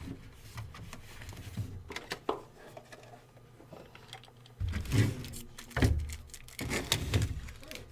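Hands handling a box and packs of trading cards. Scattered clicks and rustles run throughout, and a run of soft thumps comes in the second half.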